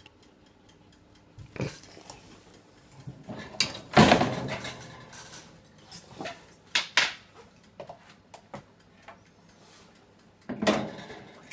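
The metal roasting tray and the glass door of a countertop mini oven knocking and clattering as the door is opened and the tray is handled. It is a series of separate knocks, with the loudest clatter about four seconds in.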